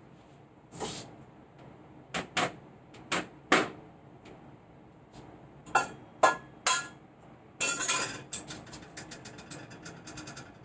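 An egg being cracked against a hard rim: about eight sharp, separate taps over the first seven seconds, then a louder crack about 7.5 seconds in, followed by a quick run of light clicks.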